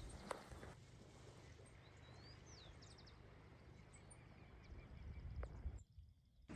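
Quiet background with a low steady hiss and a few faint bird chirps about two seconds in, plus a couple of light clicks. The sound drops out completely for a moment near the end.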